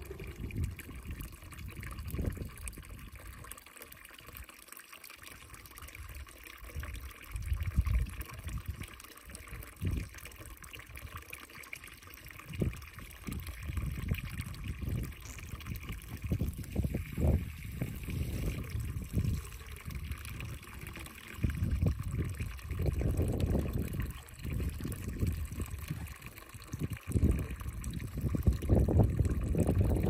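Spring water trickling steadily from a stone fountain, with irregular low thuds and rustles coming and going over it, loudest near the end.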